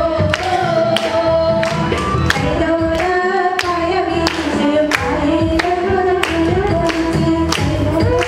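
Two women singing a song together into microphones, over a steady beat of about two strikes a second.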